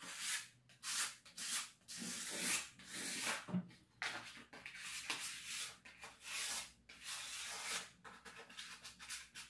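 Sandpaper rubbed by hand along a wooden stair handrail: quick back-and-forth sanding strokes, uneven in length, some short and some drawn out.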